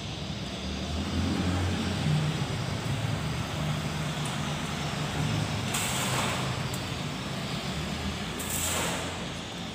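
Electric arc welding on a steel window grille: a steady crackling hiss over a low hum, growing sharper and brighter twice, about six seconds in and again near the end.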